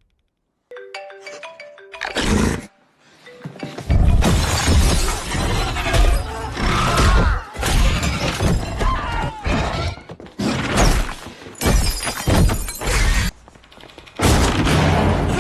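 Movie soundtrack of a chaotic attack scene: a few short musical notes, then a string of loud crashes, impacts and shattering over the score.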